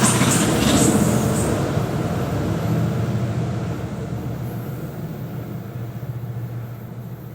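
A train running past and moving away, its steady low hum and wheel noise fading out evenly, with brief high clatter in the first second or so.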